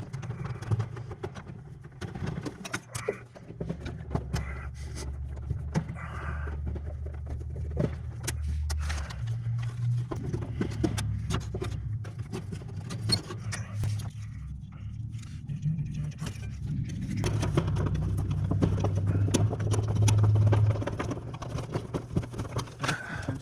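Hand work on the wiring of an air handler's electric-heat sequencers: scattered clicks, taps and scrapes of terminals, screws and wires being handled, over a low steady hum.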